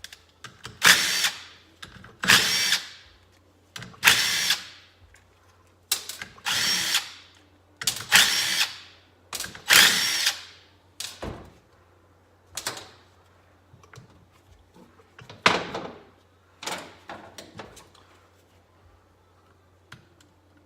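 Cordless drill/driver run in about a dozen short bursts, each about half a second, one every second or two, stopping a few seconds before the end.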